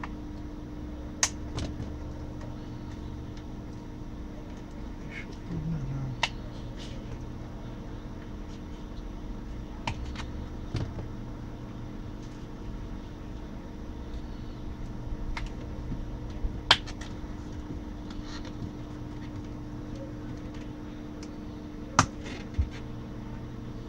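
Scattered sharp plastic clicks and knocks, about ten of them, the sharpest late on, as the plastic case of a laptop power adapter is handled and pressed shut with a small knife blade worked at it, over a steady low hum.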